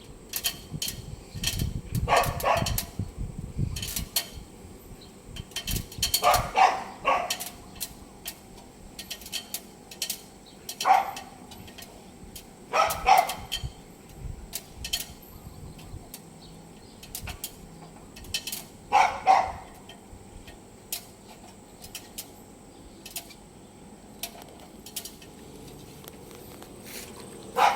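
A dog barking, a single bark or a short pair every few seconds, about six in all, over scattered light clicks and knocks.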